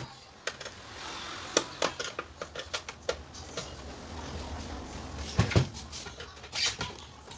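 The plastic case of a Philco portable CD boombox being handled on a workbench: scattered clicks, knocks and scrapes, with two heavier thumps about five and a half seconds in as it is laid back down flat.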